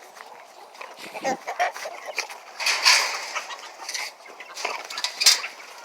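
Chickens clucking in irregular short calls, loudest about three seconds in, with a sharp click just before the end.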